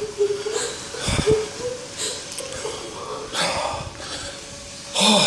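A person breathing heavily with a wheeze, with short bursts of rustling noise and a faint steady tone underneath.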